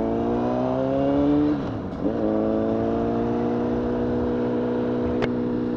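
Honda CBR1000RR (SC57) inline-four engine under way, its pitch rising slowly, then dropping sharply about a second and a half in as with an upshift and holding steady after. A single sharp click near the end.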